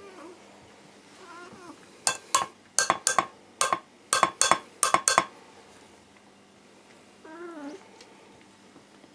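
A metal spoon tapping on a tin of cat food in a quick rhythmic pattern, about a dozen sharp clinks starting about two seconds in and lasting about three seconds: the feeding call the cats have learned to come to. A cat meows briefly before the tapping and again near the end.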